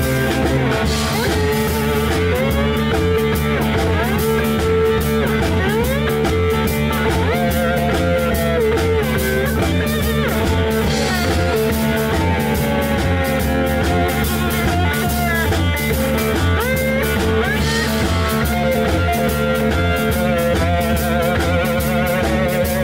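Blues-rock trio playing live with no vocals: lap steel guitar playing sliding lines that glide up and down in pitch, over electric bass and a drum kit.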